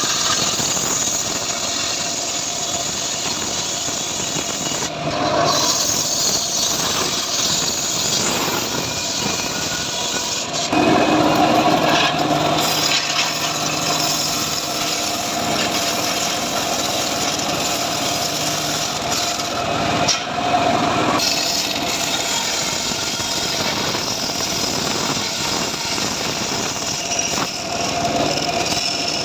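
Homemade engine-driven sawmill running and sawing sengon (albizia) logs. It makes a continuous grinding noise that gets louder about ten and a half seconds in and again around twenty seconds.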